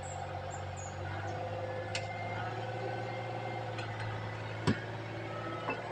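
Excavator diesel engine running steadily, with a sharp clank about three-quarters of the way through.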